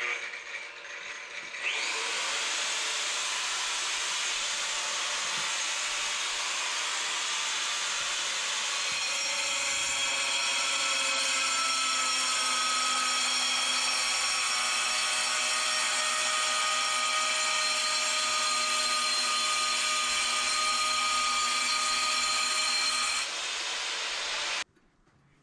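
A handheld power tool with a stone-cutting blade dry-cutting a granite countertop slab. It runs steadily with a high whine, gets louder about two seconds in as the blade bites, and cuts off near the end.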